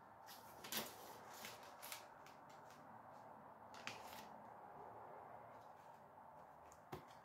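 Faint rustling and a few light clicks from handling a plastic Blu-ray keep case and its paper cover insert, which is being turned around to its reverse side.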